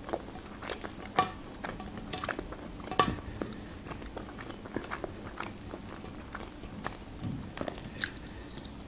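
A person chewing and biting McDonald's chicken nuggets close to the microphone: scattered short clicks and mouth sounds, with a bite near the end.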